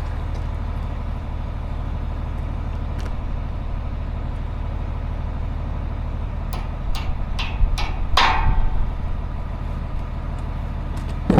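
An engine idling steadily, with a few sharp metal clinks about two-thirds of the way through, the last one ringing briefly.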